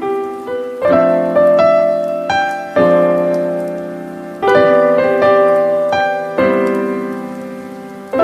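Smartphone ringtone: a piano-like keyboard melody over sustained chords, with a new chord struck about every two seconds, each fading slowly.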